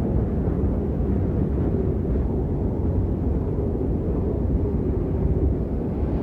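A steady, deep rumbling noise with no clear pitch or rhythm, most of its weight in the low bass.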